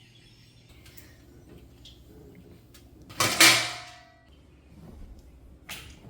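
A loud scraping clatter about three seconds in, ringing briefly as it dies away, and a shorter one near the end.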